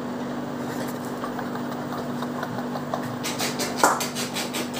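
Steady low machine hum, like a motor running without change. About three seconds in, a quick run of faint ticks begins over it.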